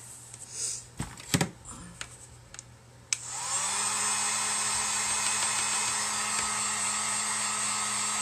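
A few handling knocks, then a switch click about three seconds in as a handheld heat gun starts up: its motor whirs up briefly and settles into a steady whir with strong blowing air, drying freshly stencilled paint.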